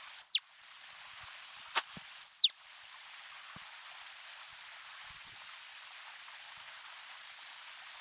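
A bird giving two short, very high chirps that sweep downward, about two seconds apart, over a steady high hiss.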